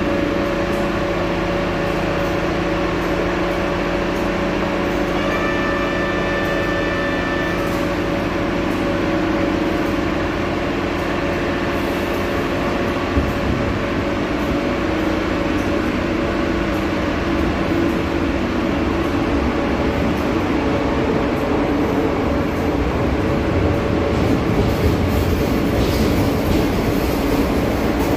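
Subway train running through a tunnel: a steady rumble with a constant hum. A brief higher-pitched whine comes about five seconds in, and the running gets a little louder, with more clatter, near the end.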